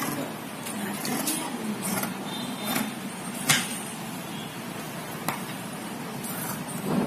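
Scissors cutting through blouse cloth, the blades closing with a few clicks, one louder about three and a half seconds in, over a steady background noise.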